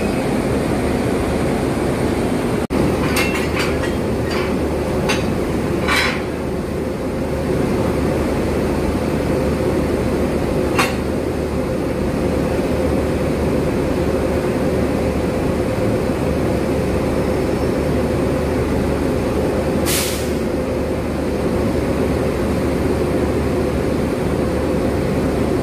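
Steady running hum of a WAP-7 electric locomotive close by, with a quick run of sharp metallic knocks a few seconds in, a single knock near the middle, and a short sharp burst about two-thirds of the way through.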